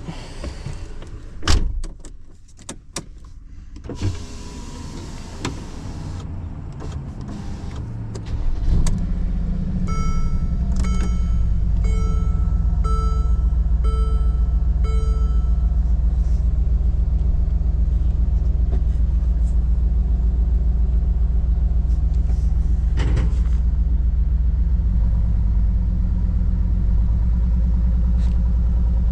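A few door and latch clunks, then a vehicle's engine starts about eight seconds in and idles with a steady low rumble. A dashboard warning chime beeps six times, about once a second, soon after it starts.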